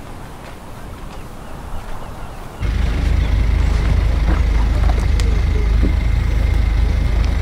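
A car engine idling, a steady low rumble that starts about two and a half seconds in, after a quieter stretch of faint outdoor sounds.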